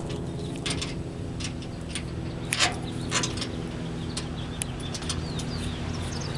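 Scattered light metallic clicks from washers and wing nuts being unscrewed and lifted off bolts, over a steady low hum, with a few brief bird chirps.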